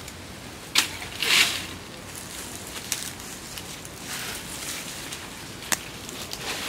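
Cloth rustling in short bursts as a jacket is handled, with two sharp clicks, one about a second in and one near the end.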